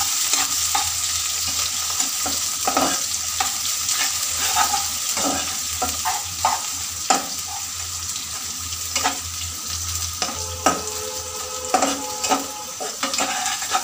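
Sliced onions and garlic sizzling in hot soybean oil in a non-stick wok, stirred with a spatula that scrapes and clicks against the pan now and then.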